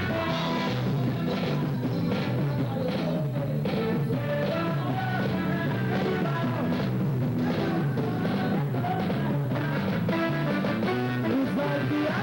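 A band playing music with a steady drum-kit beat and pitched instruments, which sound continuously with no pause.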